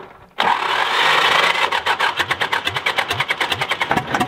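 Old diesel tractor engine being cranked and starting to fire, its new injectors still purging air: it starts about half a second in, a rapid regular chugging that picks up pace.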